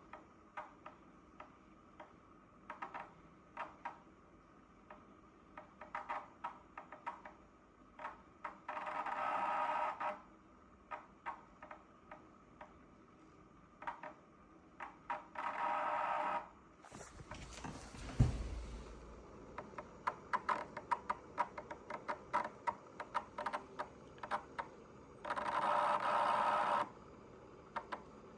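Dyson PH04 purifier-humidifier making the strange noises its owner reports as a fault: irregular clicking and ticking, broken by three buzzes of a second or two each. Midway there is a louder rush of noise with a low thump.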